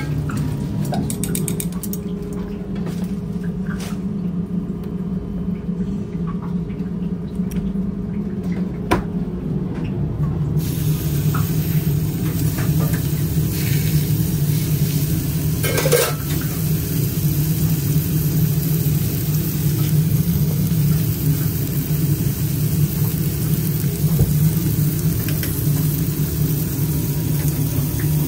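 Raw beef burger patties sizzling on a hot flat-top griddle, the hiss setting in about a third of the way through, with a couple of knocks from a metal spatula on the plate. A steady low hum runs underneath.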